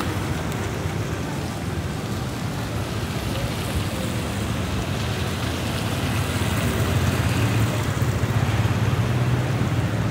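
Steady city street noise with a low engine hum from passing traffic, growing louder about six seconds in as a vehicle comes closer.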